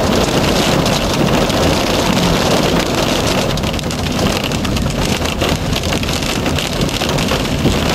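Hail and rain pelting a moving vehicle's roof and windshield, heard from inside the cabin as a loud, steady patter of many small hits, over the tyres running on the hail-covered road.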